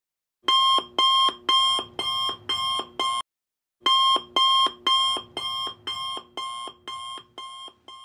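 Alarm-clock sound effect marking the countdown reaching zero: a ringing alarm tone pulsing about twice a second, starting about half a second in. It pauses briefly about three seconds in, then starts again and fades away near the end.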